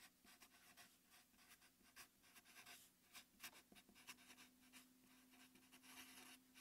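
Faint strokes of a Sharpie felt-tip marker writing on paper: a string of short, irregular scratches over a faint steady hum.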